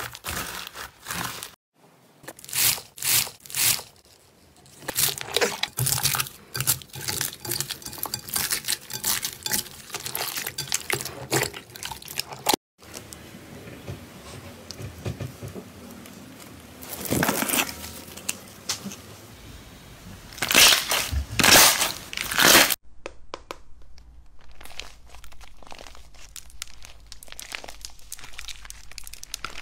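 Hands squeezing, pressing and stretching slime in several short clips: bead-filled floam, slime pushed through a wire mesh, and pink slime with crunchy pieces. The result is runs of crackling, popping and crunching, with a few louder squishy bursts in the middle and quieter crackling near the end.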